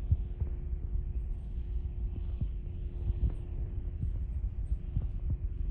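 Piston engine and propeller of a high-wing single-engine light aircraft droning overhead: a steady hum with a low throbbing underneath.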